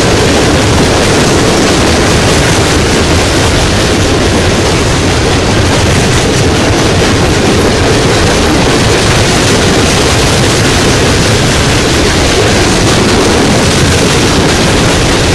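Loaded coal hopper cars of a freight train rolling past close by: the loud, steady noise of steel wheels running on the rails.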